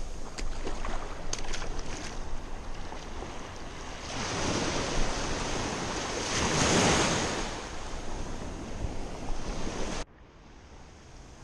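Small waves breaking and washing up a sandy beach, with wind on the microphone; the wash swells to its loudest about six to seven seconds in, then drops away suddenly near the end.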